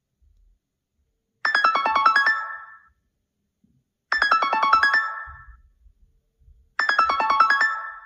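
iPhone call ringtone: a quick run of bright pitched notes, about a second and a half long and fading at the end, played three times with short gaps between.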